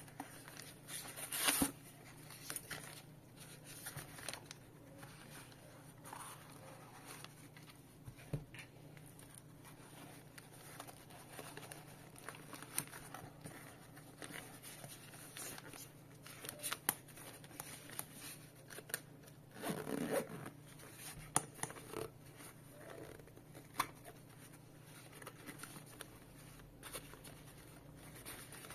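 Zippers on a waist bag being pulled open and shut, with scattered small clicks and scrapes as the bag is handled.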